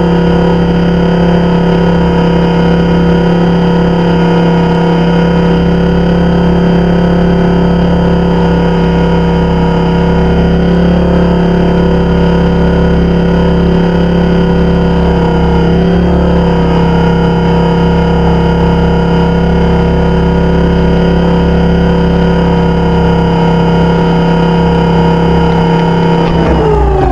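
Blade 400 electric RC helicopter's motor and rotor running with a steady whine, heard from a camera mounted on the helicopter. Near the end the pitch falls quickly as the rotor spools down.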